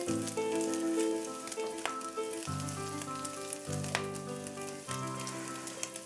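Beef bacon pieces sizzling in hot fat as they crisp in a non-stick skillet, with a few sharp crackles, under light background music with changing chords.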